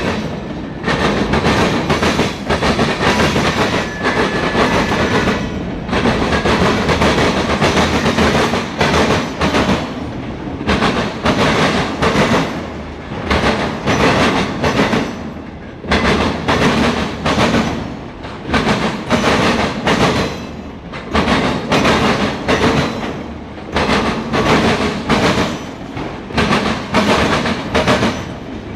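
Norfolk Southern mixed freight train rolling past, its wheels clicking over rail joints in a steady clickety-clack. The sound dips briefly every two to three seconds as one car gives way to the next.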